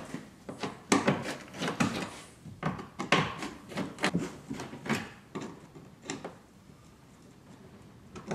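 Irregular clicks, scrapes and knocks of hands working the half-turn fasteners on an Audi A8's underbody belly pan, going quiet about six seconds in.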